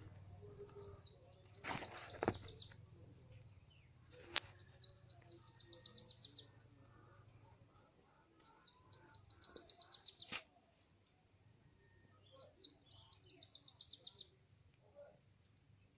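A songbird singing a rapid, high trilled phrase of one and a half to two seconds, repeated four times about every four seconds, with two sharp clicks in between.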